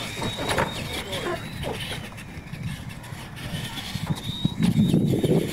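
Electric RC monster trucks of the Tamiya Clod Buster type racing on dirt: a thin high motor whine that dips briefly a few times, with scattered clicks and knocks. People's voices come in over it from about four and a half seconds in.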